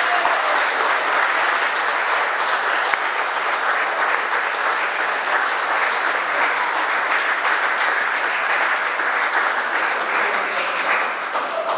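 Audience applauding steadily, tailing off near the end.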